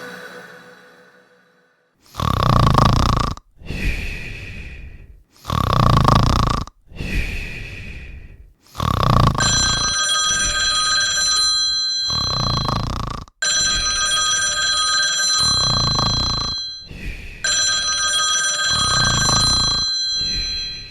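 A man snoring loudly, rasping in-breaths and out-breaths one after another. From about nine seconds in a telephone rings three long rings over the snoring.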